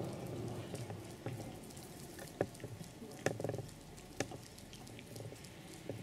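Quiet prayer-hall room tone with the echo of the recitation dying away at first, then scattered light clicks and taps, a few sharper ones between about two and four seconds in.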